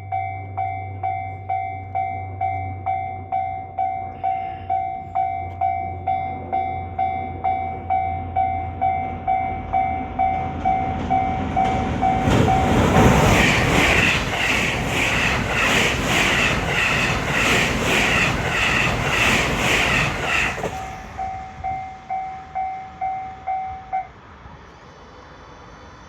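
A Japanese level-crossing bell dings about twice a second. Meanwhile a JR West 223 series electric multiple unit on a Special Rapid service passes at speed, its wheels clattering rhythmically for about eight seconds. The bell keeps ringing for a few seconds after the train has gone, then stops.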